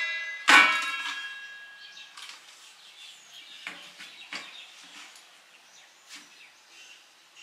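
Stainless-steel pedal bin's lid snapping shut with a loud metallic clang about half a second in, ringing and fading over about a second and a half. A few light knocks follow as the steel bin is handled.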